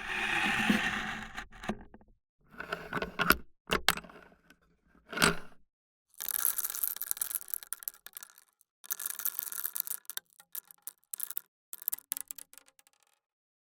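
Hundred-year-old antique coffee grinder being handled: a scraping slide at the start, then a few separate knocks, then two longer spells of dense, bright rattling, trailing off into scattered clicks.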